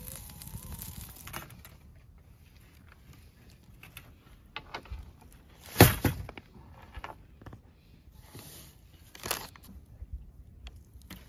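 A hinged wire grilling basket holding lamb chops being handled: scattered light clicks and crackles, a loud sharp knock about six seconds in as it is set down on a table, and a smaller knock a few seconds later.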